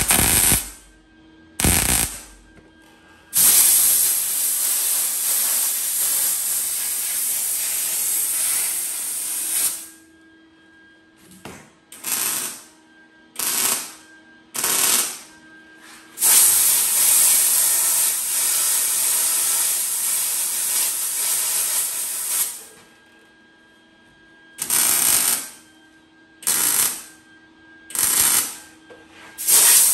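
Short bursts of MIG-welder arc crackle, about a second each and eight in all, tack-welding a butt joint on a sheet-steel quarter panel. Between them come two long steady hisses of compressed air, several seconds each, blown on the seam to cool it. Welding in short stitches and cooling at once keeps the heat down so the thin panel does not warp.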